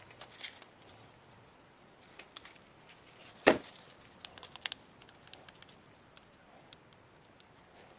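Parts and tools being handled at a workbench: scattered light clicks and taps, with one sharp knock a little before halfway.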